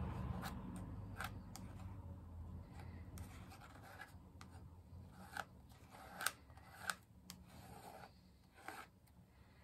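A spreading tool scraping paste through a plastic stencil onto a paper page: scattered short scrapes and taps, with two louder ones about two-thirds of the way through.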